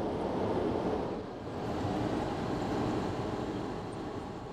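Steady rumble of a car driving, heard from inside the cabin, with road and engine noise dipping briefly about a second in.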